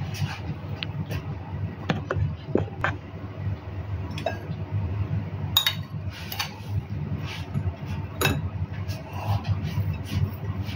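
Metal spoon clinking and scraping against an oval glass dish while crushed biscuit crumbs are tipped in and spread. Scattered sharp clinks sound at irregular intervals over a steady low hum.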